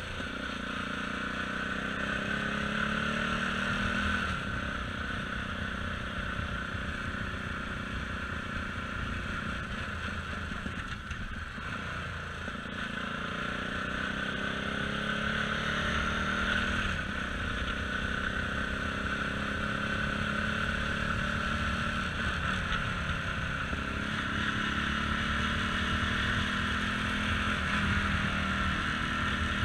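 CSC RX4 adventure motorcycle's single-cylinder engine running under way, its pitch climbing and dropping back several times as the gears change, easing off briefly about eleven seconds in. A steady rush of wind and road noise runs underneath.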